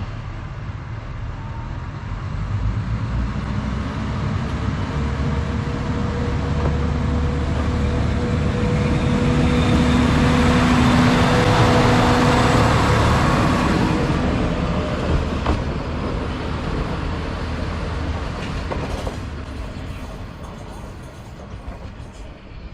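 Diesel railcar running through a station, its engine and wheels on the rails growing louder to a peak about halfway through, then slowly fading.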